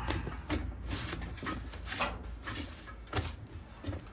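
Irregular knocks and clatters of metal being handled as loose pieces are taken off, about seven sharp knocks spread unevenly, over a steady low hum.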